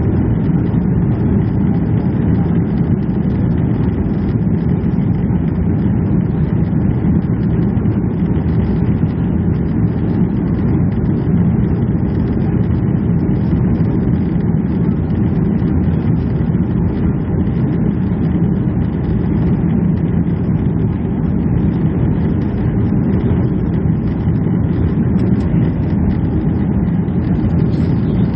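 Steady, deep rumble of engine and airflow noise inside the cabin of a Boeing 737-300 airliner.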